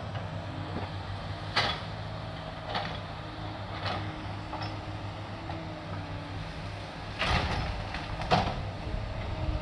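SANY hydraulic excavator's diesel engine running steadily as it works, with several sharp cracks and knocks as its bucket pushes through trees and branches, loudest about one and a half seconds in and again near the end.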